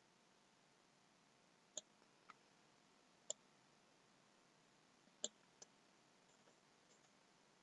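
A few faint, sharp computer mouse clicks, four or five spread over several seconds, against near-silent room tone.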